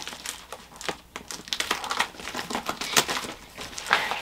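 Plastic packaging bag crinkling and rustling in irregular crackles as it is opened and handled.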